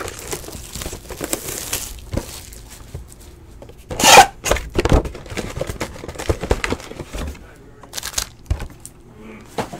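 Trading cards handled by hand: rustling and sliding as a stack is shuffled through, with sharp clicks and taps as cards and stacks are set down, and a louder burst about four seconds in.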